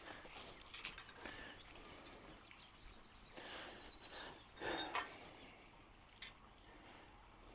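Faint outdoor background with scattered soft knocks and rustles, and a short, rapid high-pitched bird trill about three seconds in.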